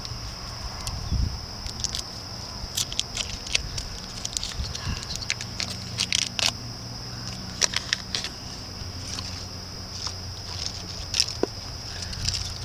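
Irregular sharp crinkles and clicks of chocolate wrappers being handled, over a steady high-pitched hiss.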